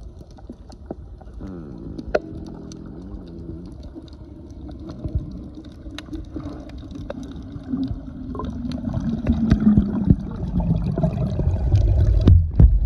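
Underwater noise over a coral reef: a low muffled rumble with scattered sharp clicks and a humming drone that wavers in pitch, getting louder over the last few seconds.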